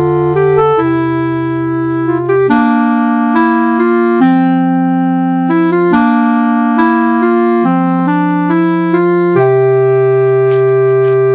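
Background music: a keyboard tune of held notes over a bass line, the notes changing about every half second to a second.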